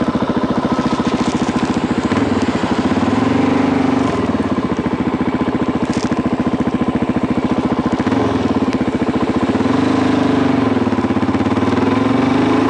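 Suzuki DRZ400SM's single-cylinder four-stroke engine running hard under the rider. The pitch climbs as it revs up about two seconds in, drops back, then climbs again past the middle.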